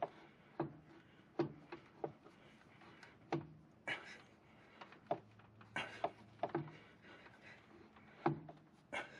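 Irregular light clicks and knocks of a rubber CVT drive belt and the metal clutch sheaves being handled while the belt is worked onto the clutch of a Polaris General XP 1000. There are a dozen or so, spaced unevenly, with the loudest about four seconds and eight seconds in.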